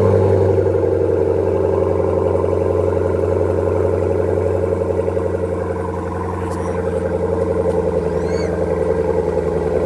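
Supercharged 6.2-litre Hemi V8 of a 2018 Jeep Grand Cherokee Trackhawk idling steadily through a newly installed Borla exhaust, just after start-up.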